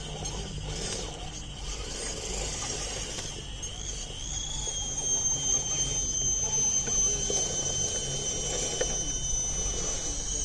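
High-pitched electric whine of an RC crawler's motor and speed controller, a steady thin tone that steps up about four seconds in and then slowly sags.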